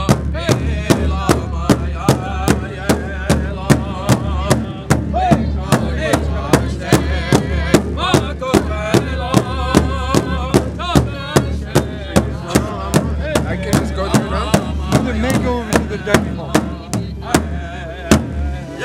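Large drum laid flat, struck by several seated drummers with sticks in a steady, even beat of about two and a half strokes a second. Voices sing over the drumbeat.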